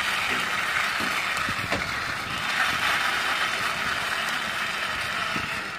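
Small plastic toy ambulance pushed by hand along a concrete ledge: a steady gritty rolling and whirring from its wheels on the rough surface.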